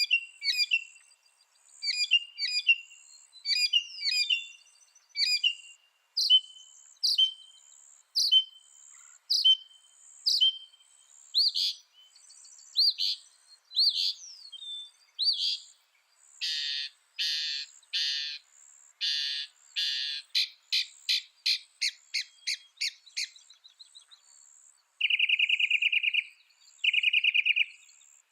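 Mockingbird singing, repeating each phrase several times before switching to the next. Sharp chirps give way to rising whistled slurs, then harsh buzzy notes and a fast run of short ticks.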